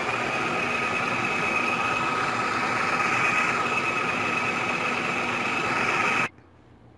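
Electric food processor running steadily, its motor whining as the blade blends chicken mince with chopped onion and spices into kofta mixture; it cuts off suddenly about six seconds in.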